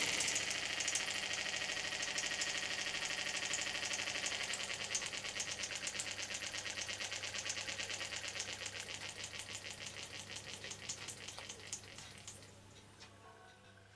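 Miniature Peake No. 4 steam beam engine running, its exhaust giving a fast, even train of beats. The beats slowly fade and thin out near the end as the engine runs down.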